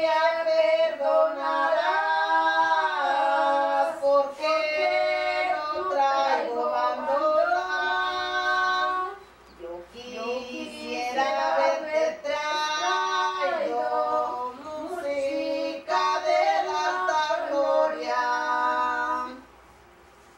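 Women's voices singing a song unaccompanied, in long held phrases with a short break about halfway through; the singing stops shortly before the end.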